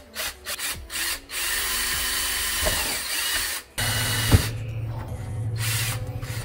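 Cordless drill boring through a plastic junction box lid: a few short trigger bursts, then a steady run of about two seconds, a sudden stop, and the drill running again.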